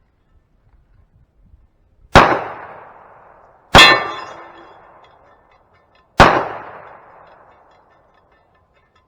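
Three pistol shots from a .45 ACP 1911, spaced a second or two apart. Each dies away with an echo, and the second is followed by a ringing clang from the hanging steel plate target being hit.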